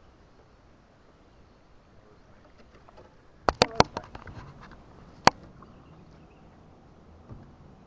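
Sharp knocks in a fishing boat: a quick cluster of three or four about three and a half seconds in, then one more about a second and a half later, over low background noise.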